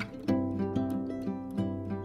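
Background music: a melody played on plucked strings, like an acoustic guitar.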